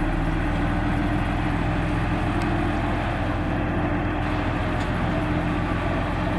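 Heavy diesel truck engine running steadily at a constant level.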